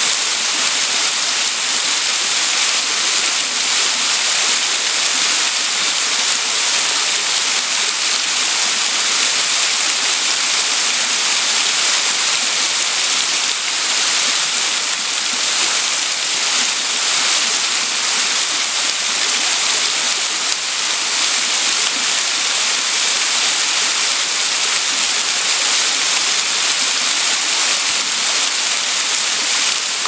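Mandara Falls, a narrow waterfall cascading down a steep rock face, giving a steady, unbroken hissing rush of falling water.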